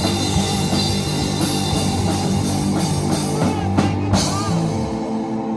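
Live rock band playing with drums, cymbals and guitar. The drumming stops about four seconds in, leaving held notes ringing.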